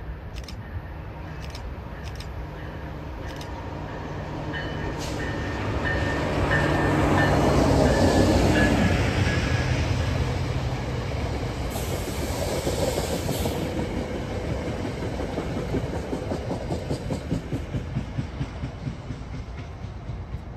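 Commuter train of double-deck passenger coaches passing at speed: a steady engine hum as it approaches, loudest about eight seconds in as it goes by, then a fast rhythmic clicking of wheels over rail joints as the coaches roll away.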